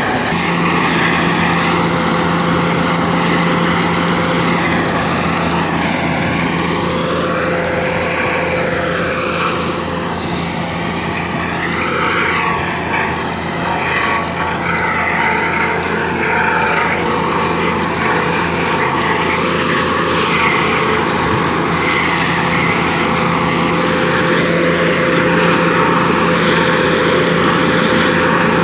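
Tractor engine running steadily under load, driving a PTO-powered Maschio flail mulcher that shreds dry crop stubble: a loud, continuous mechanical drone.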